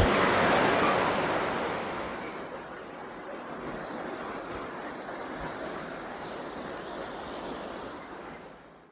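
Heavy rain pouring down in a steady hiss. It is loudest at first and grows quieter over the second and third seconds, then holds at a lower level.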